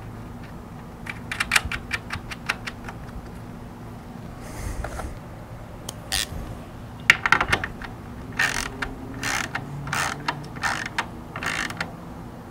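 Hand ratchet tightening the nut on a battery terminal post to secure a wiring ring terminal: runs of quick clicks, then several longer ratchet strokes near the end.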